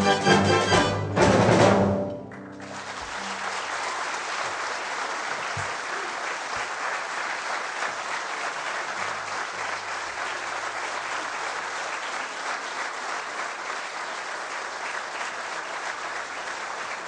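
A symphony orchestra plays the closing bars of a tango and stops on a final chord about two seconds in. A concert audience then breaks into steady applause.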